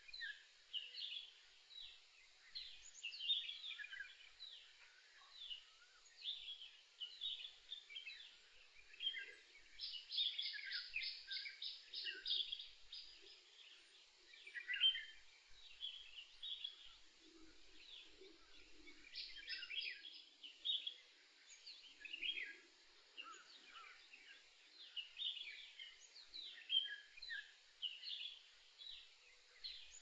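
Birds chirping and calling together in forest, many short high calls overlapping throughout. About ten seconds in, one bird gives a quick, even run of repeated notes lasting a few seconds.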